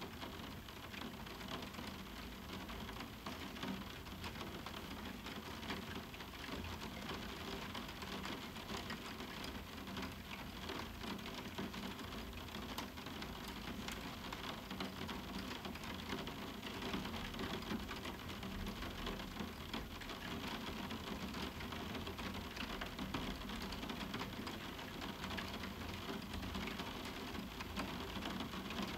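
Moderate summer rain falling on a roof window: a steady, dense hiss of drops striking the window, with many fine individual drop ticks.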